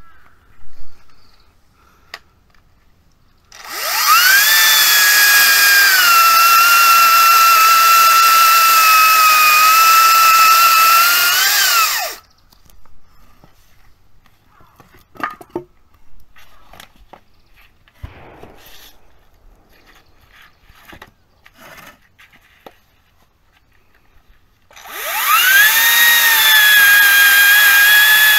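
Makita MUC204D battery chainsaw running in two long bursts: the electric motor's whine rises at start-up, drops to a lower steady pitch as the chain bites into wood, and cuts off sharply when the trigger is released. Between the bursts, scattered light knocks and clicks.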